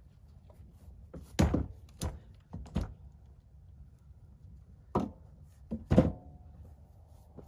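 Wooden logs knocking as they are loaded onto an ATV's rear rack: a series of dull thunks, three in the first few seconds, then two more about five and six seconds in, the last the loudest with a short ring.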